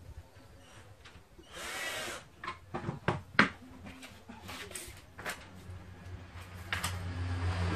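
Knocks and clattering of tools and wooden parts being handled on a plywood tabletop, the loudest a sharp knock about three and a half seconds in. A brief burst of noise comes about two seconds in, and a low hum builds near the end.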